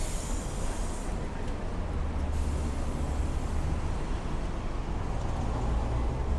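City street traffic: vehicle engines with a steady low rumble, and a higher hiss that swells twice as vehicles pass.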